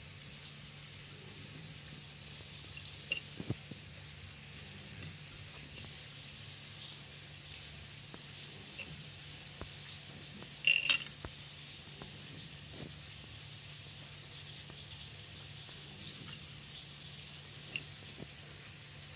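Oil sizzling faintly in a pan, a steady hiss under a low hum, with a few light clicks and taps as the fried fish is picked apart on a glass plate; the loudest is a sharp clink about eleven seconds in.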